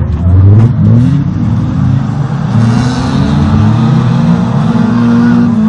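Several stock-car engines of the up-to-1800 cc class racing through a dirt-track curve, overlapping and revving up and down as the cars accelerate and back off.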